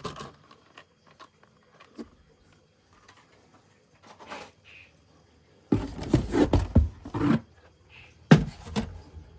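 Knocks and clatter of hard plastic toys being handled: a few light clicks, then a burst of clattering about six seconds in and a sharp knock with more clatter about eight and a half seconds in.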